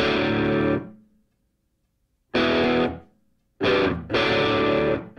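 Music: distorted electric guitar chords, struck and left to ring in short stabs with silent gaps between them, then held near the end.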